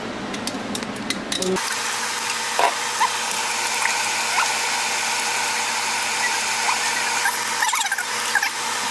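Steady hiss at a gas stove where a large steel pot of tomato stew is simmering and steaming, with a few faint knocks over it. The hiss starts suddenly about a second and a half in.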